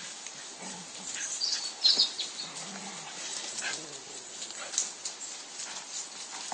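Dogs on a woodland walk: a few faint, short, high-pitched dog whines about one to two seconds in, over the soft rustle of footsteps through fallen leaves.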